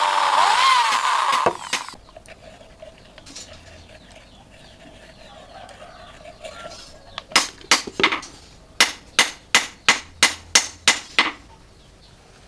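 Handheld electric drill boring through a cleaver's steel tang and wooden handle scale, its whine dipping and rising in pitch under load before cutting off about a second and a half in. After a quieter stretch, about a dozen sharp hammer taps follow in quick succession, about three a second.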